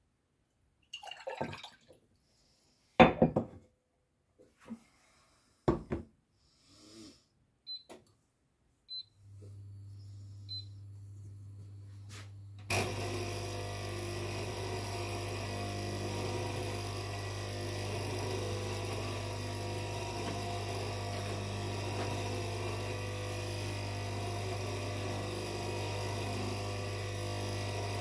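Crockery and kitchen items knocked and handled, with a few short electronic beeps. An electric kitchen appliance then starts: first a low steady hum, and a few seconds later a louder, even running noise joins it and carries on.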